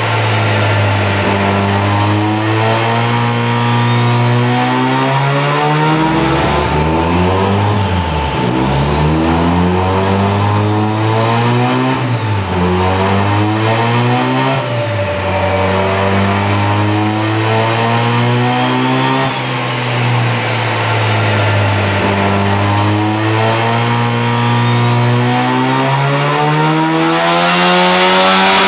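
Mazda RX-3's rotary engine running under load on a chassis dyno, mostly holding steady revs, with its pitch dipping and climbing back a few times.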